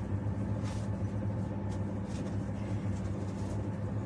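Steady running noise inside a moving passenger train carriage: a low hum with a few faint clicks and rattles.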